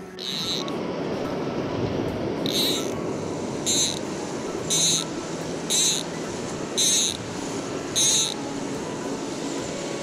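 Click-and-pawl fly reel buzzing in short ratchet bursts, about one a second, as fly line is pulled off it by hand. A steady rush of stream water runs underneath.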